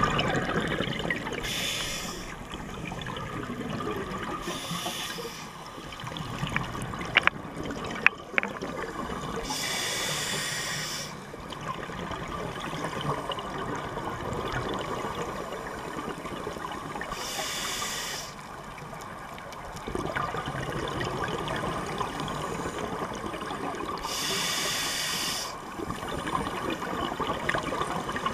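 Scuba breathing heard underwater: a regulator hiss on each inhale, five times a few seconds apart, with the churning rush of exhaled bubbles between them. Two sharp clicks come about seven and eight seconds in.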